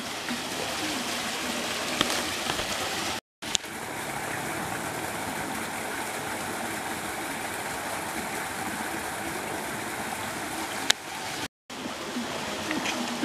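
Steady rush of water from a waterfall, broken twice by a brief total silence.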